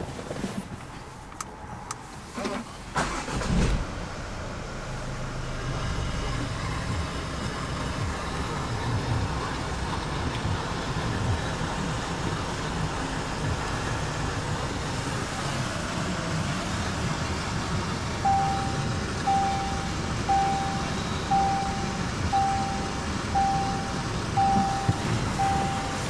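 Jaguar F-Pace engine starting a few seconds in, then idling with a steady low rumble, heard from inside the cabin. From about two-thirds of the way through, a warning chime beeps about once a second over the idle.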